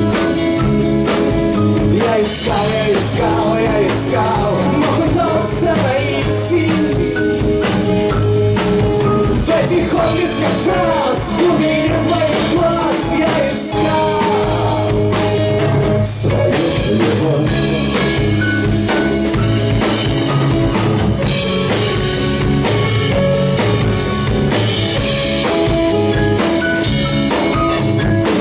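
Live rock band playing an instrumental passage: drum kit with rimshots, bass and guitars, over which a wavering lead melody runs through the first half.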